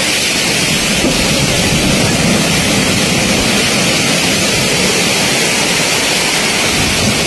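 Typhoon storm noise: heavy rain and wind making a loud, steady hiss that does not let up.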